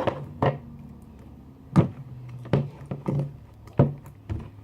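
Sticky white-and-clear glue slime being kneaded by hand in a bowl: irregular sharp slaps and thuds, about seven of them, as it is pressed and pulled. The slime is still a bit sticky.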